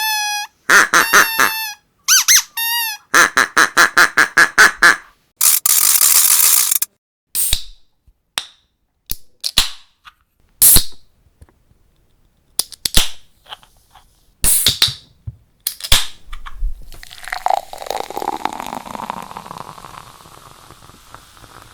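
A squeaky dog toy squeaked in a run of short, pitched squeaks, then beer being opened: several short hissing releases and sharp clicks, and near the end a longer fizzing hiss that fades away.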